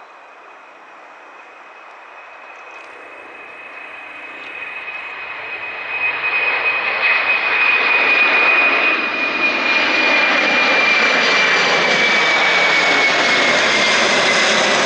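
Boeing 747's four turbofan engines at takeoff power, growing steadily louder over the first several seconds and then holding loud. A strong high fan whine runs through the roar and slides slightly lower as it goes.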